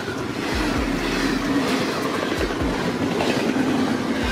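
Double-stack container freight train rolling past: a steady rumble of wheels on rail, with the wheels clacking in pairs about every two seconds.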